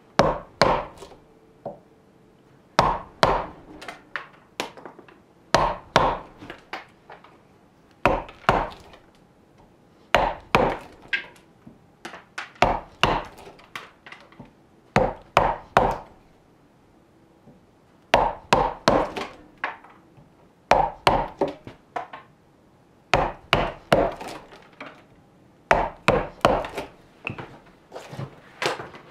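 Mallet blows driving a 4 cm semicircular gouge into a clamped block of raw birch to hollow out a kuksa, the wood chipping out. The blows come in quick bursts of three to five, one burst about every two and a half seconds.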